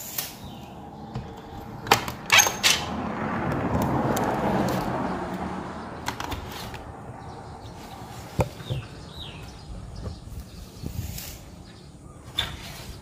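Metal window latch and frame clicking and knocking as a window is unlatched and pushed open, several sharp knocks a couple of seconds in and a few more later. A broad rushing sound swells up and fades away around the middle.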